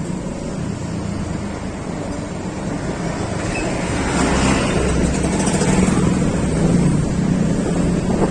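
Road vehicle running along at speed, its engine a steady low hum under wind noise on the microphone that grows louder about halfway through.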